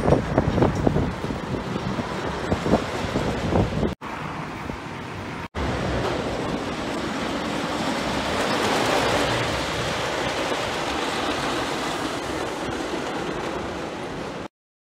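Wooden roller coaster train running along its wooden track, first a rattling clatter, then a steady rumbling rush that swells about nine seconds in and eases off. The sound drops out briefly twice early on and cuts off suddenly just before the end.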